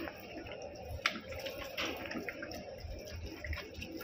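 Lemon being squeezed by hand over raw chicken in a bowl, juice dripping, with a few small clicks about a second in and near two seconds.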